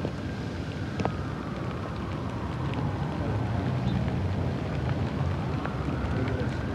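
Steady low rumble of city traffic, with a faint tone sliding slowly down over the first couple of seconds and rising again near the end.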